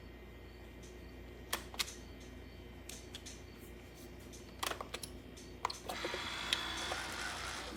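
Sharp plastic clicks and knocks from handling a Keurig K-Brew+Chill single-serve coffee maker, then a steady hiss that starts about six seconds in.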